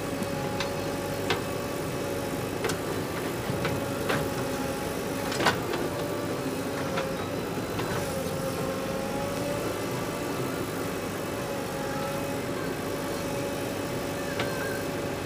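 Diesel engines of a JCB 3DX backhoe loader and a tractor running steadily, with a thin steady whine over the hum. A few sharp clicks or knocks sound through it, the loudest about five and a half seconds in.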